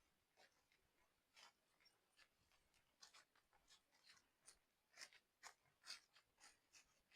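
Near silence with faint, irregular crackles and rustles, a few a second, slightly busier in the second half.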